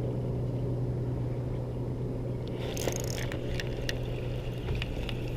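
A steady low hum, with a handful of light clicks and ticks in the second half from a spinning reel and rod being handled.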